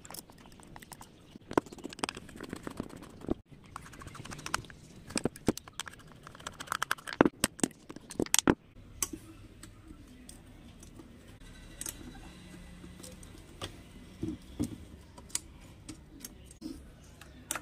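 Small metal clicks and rattles from a screwdriver turning the screws that hold the circuit board in the metal housing of a cable TV optical node, with the case being handled. The clicks come thick and fast for the first half, then thin out to a few scattered clicks.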